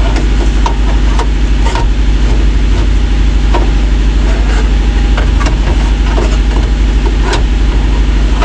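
A motor running steadily, a loud low rumble with an even pulse, under scattered sharp clicks and knocks of parts being handled.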